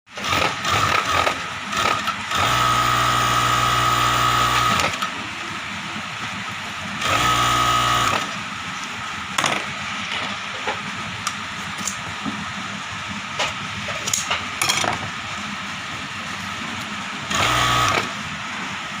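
Industrial direct-drive flatlock sewing machine stitching in three runs: a long one of about two and a half seconds, then shorter ones of about a second and half a second. Between runs there is a faint steady hum and scattered clicks.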